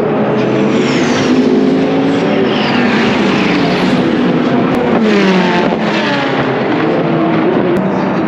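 Several endurance race cars running at speed past the grandstand, their engines overlapping in a continuous drone. The pitch drops as cars go by, most clearly about halfway through.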